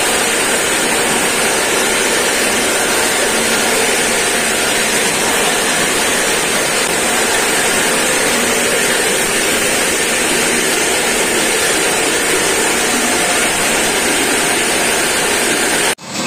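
Plastic scrap grinder (granulator) running under its electric motor while scrap plastic is fed into the hopper: a loud, steady, dense grinding noise.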